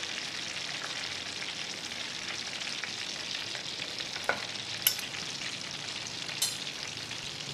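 Hot oil sizzling steadily as chicken deep-fries, with a few short sharp clicks around the middle as a metal spatula lifts a fried piece onto the plate.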